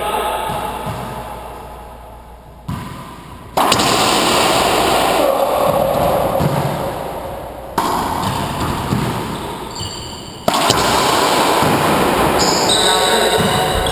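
Racquetball rally in an enclosed court: racquetballs smacking the walls and floor and hardwood-court shoe squeaks, echoing off the walls. A loud rushing noise jumps up suddenly several times.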